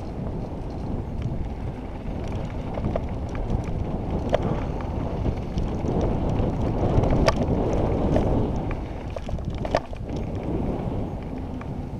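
Wind rushing over a helmet-mounted camera's microphone as a mountain bike rolls fast down a dirt trail, with tyre rumble and a few sharp clicks from the bike rattling over the ground.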